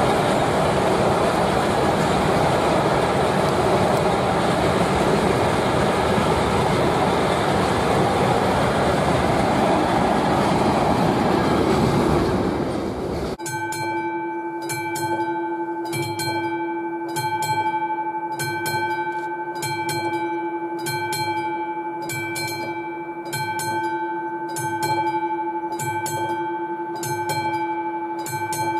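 A freight train of wagons carrying large steel pipes rolls past close by, with a loud, steady rolling noise that cuts off about halfway through. After that comes a quieter steady hum of several tones with a regular pulse about every three-quarters of a second, from an approaching ČD class 230 electric locomotive.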